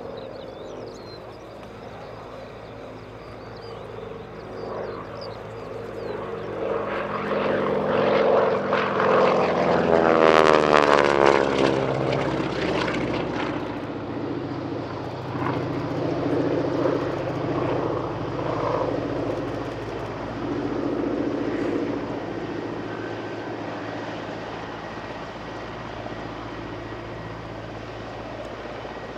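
North American SNJ-3 Texan's Pratt & Whitney R-1340 Wasp nine-cylinder radial engine and propeller running during aerobatics. It grows louder to a peak as the plane passes close, about ten seconds in, then drops in pitch and fades, swelling again a few times as it manoeuvres.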